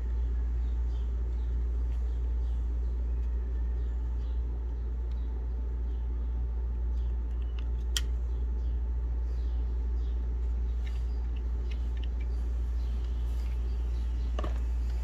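A steady low background rumble, with light clicks and taps as the opened mouse's plastic shell and circuit board are handled. One sharper click comes about halfway through, and another near the end.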